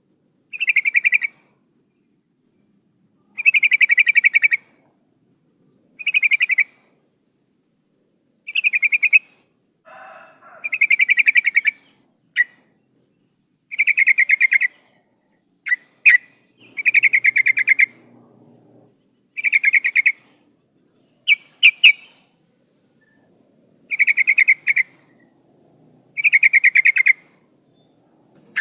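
Yellow-vented bulbul (trucukan) calling in repeated bursts: about ten quick chattering phrases, each about a second long, coming every two to three seconds, with a few short single notes in between. This is the call of a female calling to a male.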